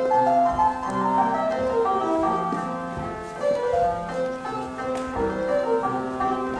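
Instrumental quadrille music: a melody of short notes over held bass notes, accompanying the dance.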